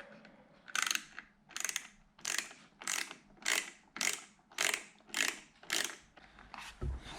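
Ratcheting hand tool clicking back and forth in short, even strokes, about two a second, driving a bolt hard into a plastic end. The last few strokes near the end are fainter.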